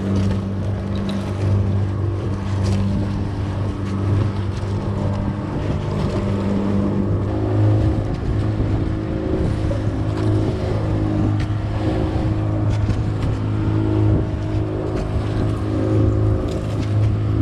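Fishing boat's engine running steadily, its note changing about seven seconds in.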